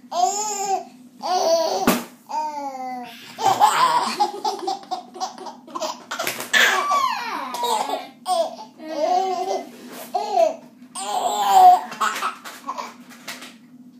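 Eight-month-old baby laughing hard in repeated bursts of belly laughs and giggles. A thrown spoon clatters once, sharply, about two seconds in.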